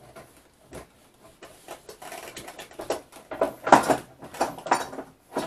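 A run of short wooden knocks and rattles as the wooden board is handled and released from the bench vise, sparse at first and louder and closer together in the second half.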